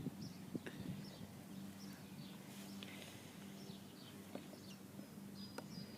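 Faint, scattered bird chirps over a quiet background with a low steady hum and a few small clicks.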